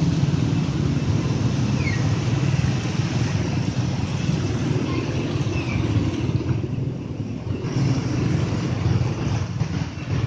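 Motor vehicle and scooter engines running steadily at low speed as the wheels push through street floodwater, with a constant splashing hiss from the spray.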